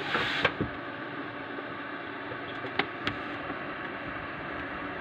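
Computer cooling fan running with a steady whir and faint hum, its sleeve bearing freshly oiled, with no buzzing. A few light clicks sound about half a second in and around the three-second mark.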